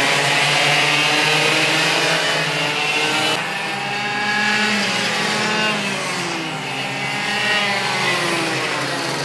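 Several racing karts' engines buzzing past together, their pitch rising and falling as the drivers accelerate and lift through the corners.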